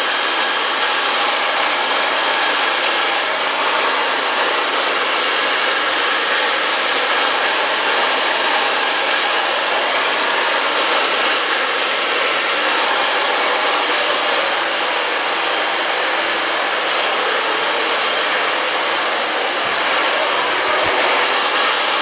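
Handheld blow dryer with a concentrator nozzle running steadily, blowing hot air onto hair held over a round brush. It is heating a brushed crease along a part to set a ridge for volume.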